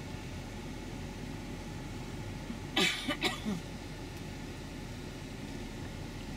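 Steady low rumble of a shuttle bus's engine and cabin as it creeps forward. About three seconds in, a person makes a brief throat-clearing or cough-like vocal sound.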